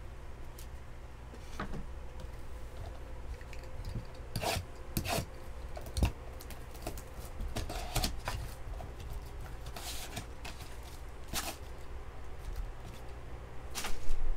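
Hands handling trading-card packs and a shrink-wrapped Bowman Sapphire card box: a string of irregular rustles, scrapes and crinkles of plastic and card.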